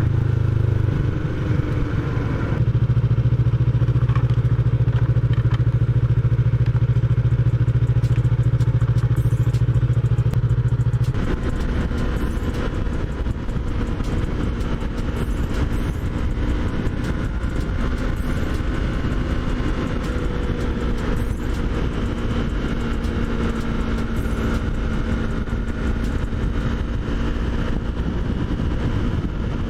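2021 Yamaha MT-03's parallel-twin engine running as the bike is ridden. It is louder for the first ten seconds or so, then drops suddenly to a lower, steady note about eleven seconds in.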